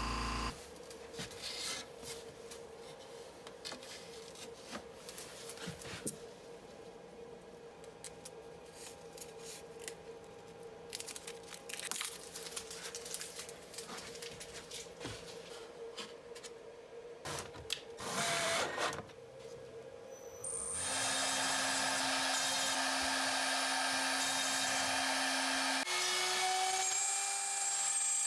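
Woodworking on a guitar top: scattered scraping, tapping and clicking of wood and hand tools. About twenty seconds in, a power tool starts and runs steadily and louder, its hum stepping up in pitch near the end.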